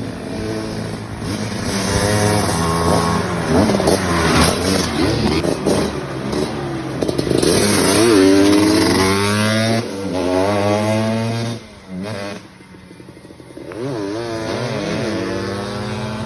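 Supermoto motorcycle engine being revved up and down repeatedly, its pitch rising and falling with each blip of the throttle. About twelve seconds in the sound briefly drops away, then the engine comes back and revs again.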